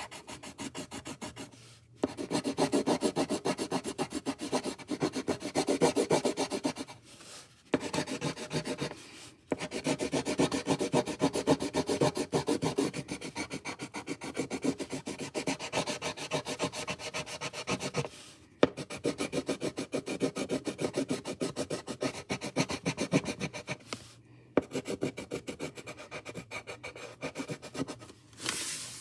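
Colouring tool scribbling on paper in rapid back-and-forth strokes, filling in a coloured area, in several runs broken by short pauses.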